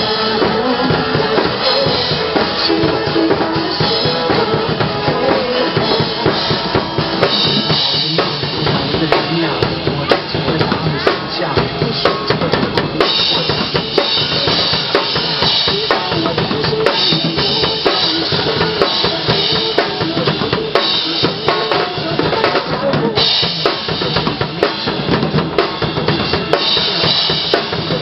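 A drum kit played hard and without pause, bass drum, snare and cymbals hitting densely over music with held tones from other instruments.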